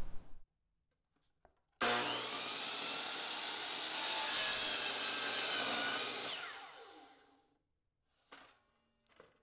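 DeWalt 10-inch compound miter saw starting suddenly about two seconds in and cutting through a strip of PVC decking, then the blade winding down with a falling whine and stopping. A couple of light clicks follow near the end.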